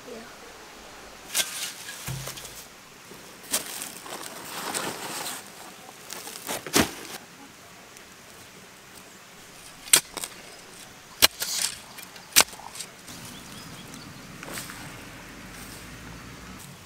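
Hands digging and rustling in a mulched garden bed, with scattered scraping sounds and a few sharp clicks. A faint steady hum comes in near the end.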